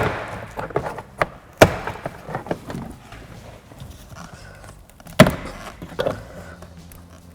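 Plastic retaining clips of a car door's interior trim snapping loose as a trim tool pries the panel off: three sharp pops, one right at the start, one about a second and a half in and one about five seconds in, with smaller clicks and plastic rattles between.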